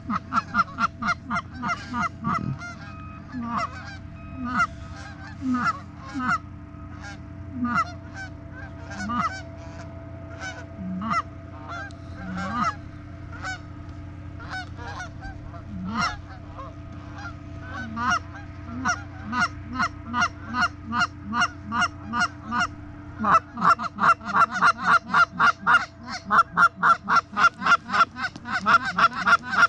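Canada goose honks and clucks, one after another, turning into a quicker, louder run of about two calls a second about two-thirds of the way through.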